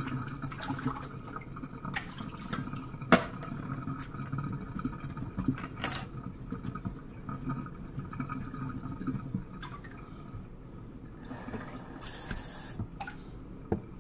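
Water draining out of a kitchen sink, gurgling down the drain and slowly getting quieter, with a few sharp clicks and a short hiss about twelve seconds in.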